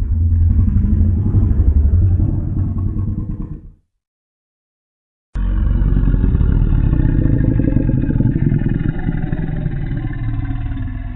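Two deep, rumbling monster growls, custom sound effects for a fictional dinosaur creature. The first lasts about four seconds; after a short silence, a second, longer growl starts abruptly and slowly fades.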